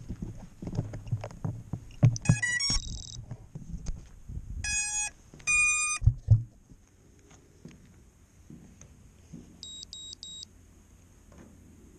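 Knocks from an FPV quadcopter being handled, then electronic startup beeps as it powers up. A quick run of rising tones comes about two seconds in, two longer beeps follow around five and a half seconds, and three short, higher beeps come near ten seconds. A faint steady high whine runs underneath.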